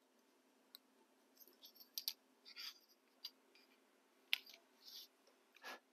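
Faint, short scratches of a hobby knife cutting small acetate-backed window pieces on a cutting mat, with a handful of sharp clicks from tools being handled.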